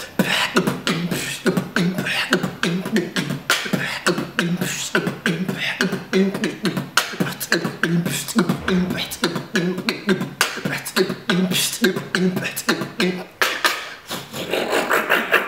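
Solo human beatboxing: a fast, steady groove of mouth-made kick, snare and hi-hat sounds with short low hummed notes between the beats. Near the end the drum pattern gives way to a longer breathy, sustained sound.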